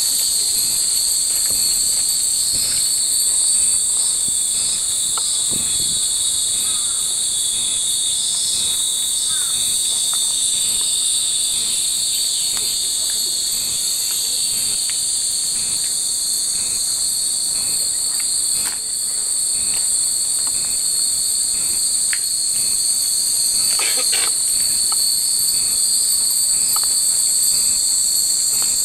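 A dense chorus of cicadas singing in the trees: a loud, steady, shrill buzz that never lets up.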